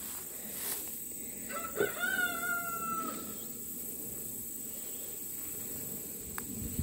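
A rooster crows once: a single call of about a second and a half that rises quickly, holds, and tails off.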